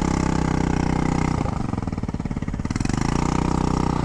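Honda Ruckus scooter engine running steadily while riding, its pitch dipping briefly about a third of the way in before picking back up.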